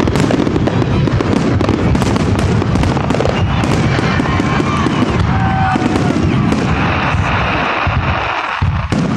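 Aerial fireworks shells bursting in quick succession: a dense, continuous barrage of overlapping bangs and crackling, with a few short whistling tones mixed in and a slight lull near the end.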